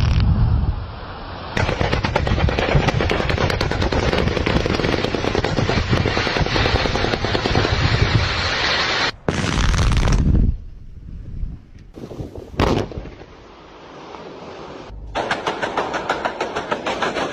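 Blasting: a long, rapid crackle of many sharp bangs in quick succession, then a couple of separate loud bangs with quieter gaps, and another rapid crackle near the end.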